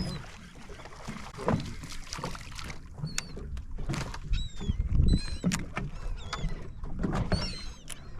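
Seabirds calling over the water: short, high, falling cries several times, over knocks and low rumble from the boat.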